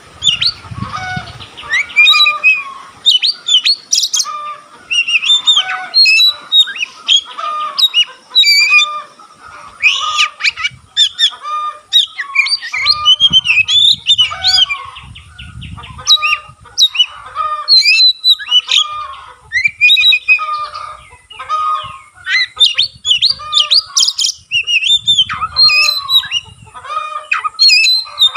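Oriental magpie-robin in full song: a continuous, rapid run of varied sharp whistles, chirps and harsher notes, with hardly a pause.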